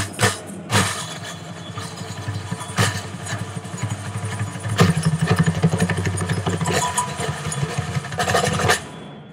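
Brazilian samba bateria drums: a few heavy beats, then a sustained rapid drum roll that swells louder about five seconds in and cuts off abruptly near the end, closing the piece.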